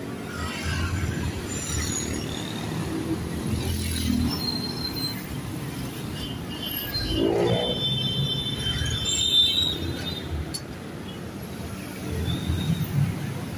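Roadside traffic: motorcycle and vehicle engines passing close by over a steady rumble, with one engine note rising about seven seconds in. A thin high squeal sounds for a few seconds around the middle.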